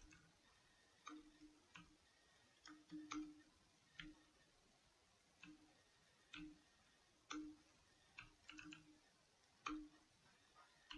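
Faint computer keyboard keystrokes: a dozen or so irregular clicks, some in quick clusters, as code is typed.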